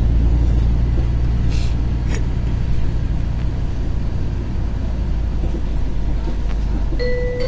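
LiAZ-5292.22 diesel city bus under way, heard from the passenger cabin: a steady low rumble of engine and road, with a short hiss about a second and a half in and a click just after. Near the end an electronic chime starts, the signal before the next-stop announcement.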